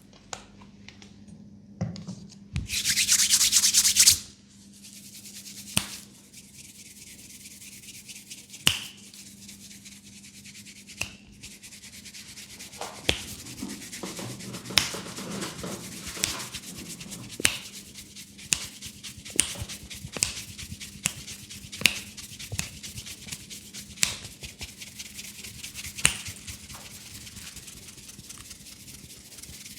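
Hands rubbing and kneading hair and scalp close to the microphone during a head massage, a steady scratchy rubbing sound, with a louder rush of rubbing about three seconds in. Sharp snaps or cracks come every second or two.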